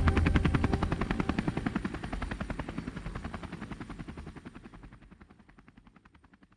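Helicopter rotor beating in a fast, even rhythm, fading steadily away until it is gone near the end.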